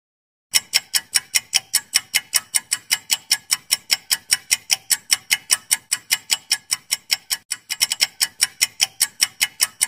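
Countdown-timer ticking sound effect: rapid, even clock ticks at about five a second, starting about half a second in.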